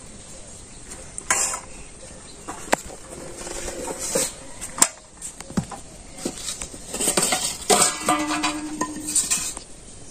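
Stainless-steel bowls knocking and clinking on the ground as fruit and vegetables are set into them and moved about, with a couple of short ringing tones from the bowls.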